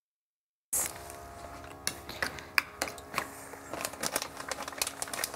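Kitchen counter clatter: an irregular string of sharp clicks and light knocks of utensils and containers being handled, over a steady hum. The sound cuts in abruptly under a second in.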